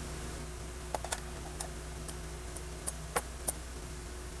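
A few scattered light clicks and taps of hard plastic as hands handle an outdoor Wi-Fi access point and fit its white antenna, over a steady low hum.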